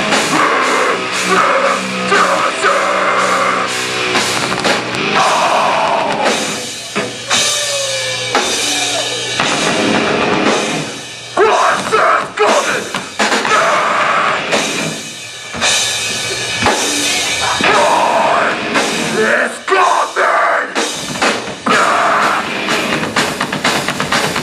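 A live rock band playing loud, heavy music with a drum kit, with brief drops in loudness about a third and two-thirds of the way in.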